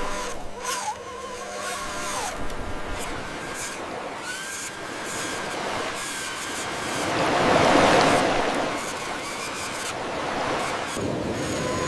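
Mechanical noise of small vehicle motors, with short whining tones and scattered clicks, swelling to a louder rush about eight seconds in.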